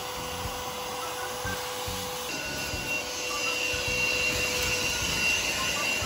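A small motor running steadily, with a rushing whoosh and a thin high whine that grows stronger about two seconds in.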